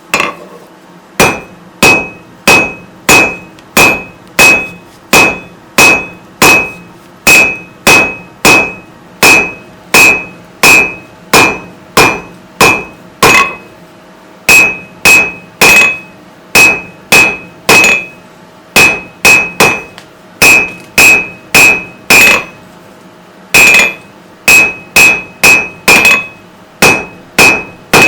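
A blacksmith's hammer striking hot steel bar on an anvil by hand, steady blows about one and a half a second, each with a short high metallic ring. The hammering starts about a second in and breaks off briefly twice, around the middle and later on.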